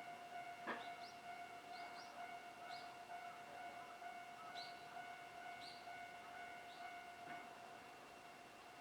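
Electronic warning bell of a Japanese railway level crossing ringing, a steady repeating ding with several tones, with two knocks and faint high chirps over it.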